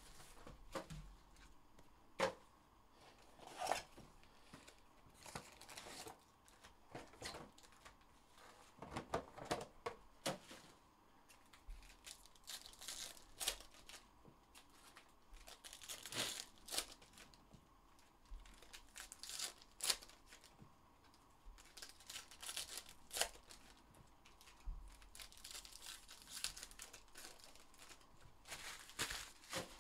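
Trading-card packs and their box wrapping being torn open by hand, the wrappers ripping and crinkling in short irregular bursts, with occasional sharp clicks between.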